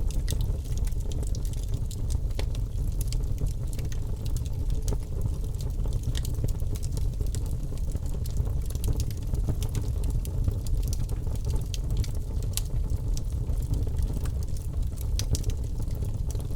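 Birch logs burning in a fireplace: many small sharp crackles and pops over a steady low rumble of the fire.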